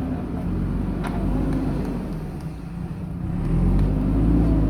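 Diesel engine of a JCB 3DX backhoe loader running, with a single sharp clank about a second in; about three and a half seconds in the engine picks up, running louder and higher under load.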